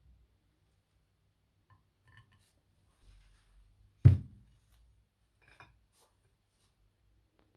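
A single solid thud about four seconds in, with a few faint clicks and taps before and after it.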